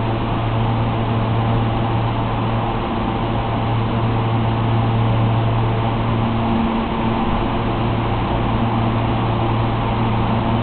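R160 subway train standing at a station platform, its onboard equipment giving a steady low hum over a constant rushing noise.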